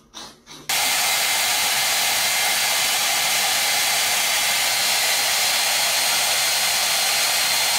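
Handheld hair dryer blowing: a loud, even rush of air with a faint whine, which starts abruptly about a second in.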